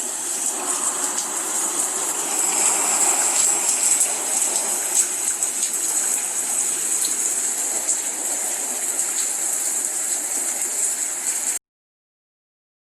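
A steady rushing noise played as a sound clip, even in level throughout, cutting off abruptly near the end.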